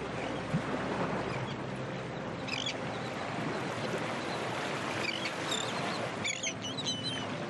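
Steady rush of water and wind with a few short, high gull calls: one about two and a half seconds in, a couple around five seconds, and a quick cluster between six and seven seconds.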